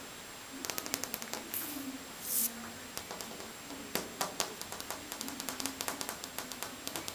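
Cat lapping water: runs of quick, small wet clicks from its tongue, coming in bursts with short pauses between. A short soft hiss about two seconds in.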